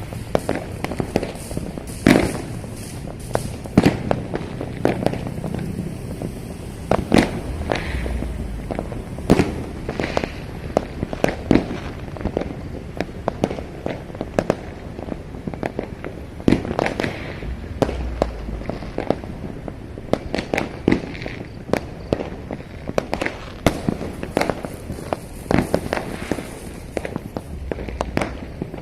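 Fireworks bursting across the city, many overlapping and irregular bangs and pops, some near and sharp, others distant and echoing, over a steady background rumble of more far-off explosions.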